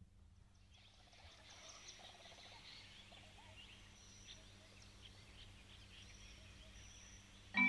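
Faint outdoor ambience with birds chirping and calling, over a low steady hum. Just before the end, music on mallet percussion begins.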